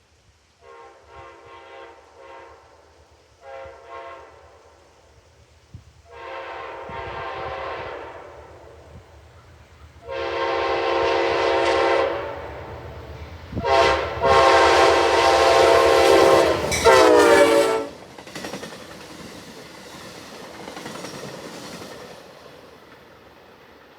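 Amtrak locomotive 127's horn played as a horn show: a string of short blasts, then longer ones growing louder as the train nears, the loudest and longest ending with a sliding drop in pitch about eighteen seconds in. Under and after it, the passing train's low rumble of wheels on rail.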